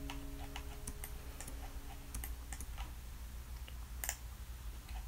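Scattered sharp computer mouse clicks, several spread irregularly through the few seconds as chains are picked on screen. Under them a held guitar note of background music dies away in the first half.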